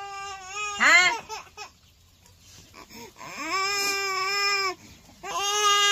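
A baby crying and whining in drawn-out wails, with a quick burst of falling cries about a second in.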